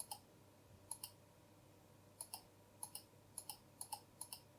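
Computer mouse button clicked about seven times at an irregular pace, each click a quick press-and-release pair of light clicks, while keys are selected one by one in the keyboard's lighting software.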